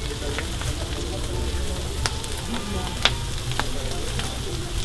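Food sizzling steadily on a hot flat-top griddle over a low rumble, with a few sharp clicks in the middle.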